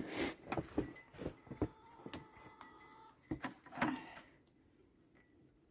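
A run of light clicks, knocks and clinks from something being handled, dying away about four seconds in.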